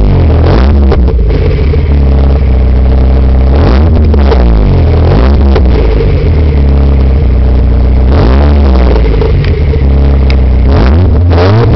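Peugeot 306 XSi's 2.0-litre four-cylinder engine, hot, revved hard again and again through a Thunder aftermarket exhaust. The revs climb sharply several times and are held at a steady drone between the blips. It is very loud.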